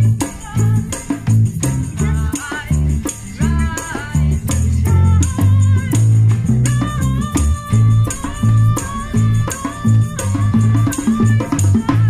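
Small live band playing an instrumental passage: electric bass notes, acoustic guitar, bongo hits and a shaker rattling in time, with a high wavering melody line over the top.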